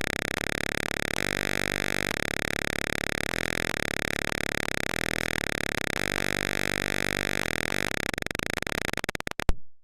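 Simulated piezo buzzer in Tinkercad's Arduino circuit simulator sounding a steady, buzzy alarm tone broken by small regular clicks. It is the fire alarm going off because the temperature sensor reads 40 degrees or more. Near the end it stutters rapidly and cuts off.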